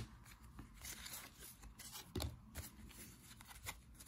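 Soft rustling and light flicks of a stack of 1990 Donruss baseball cards being gathered and squared up in the hands, with a slightly louder tap about two seconds in.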